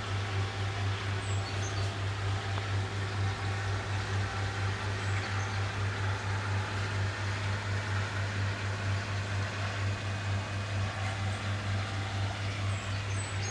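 Water running through a koi pond filter chamber over a steady, deep mains hum from the pond's pump equipment.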